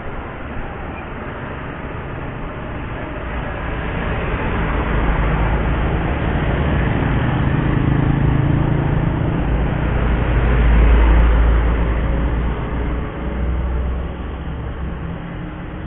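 Road traffic driving by close: light trucks, motorcycles and a car passing one after another, their engines building to the loudest point about ten to eleven seconds in, then fading.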